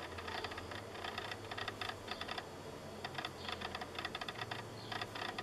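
Hands placing sliced mushrooms on a pizza: quick, irregular light clicks and rustles, several a second, with a low steady hum underneath.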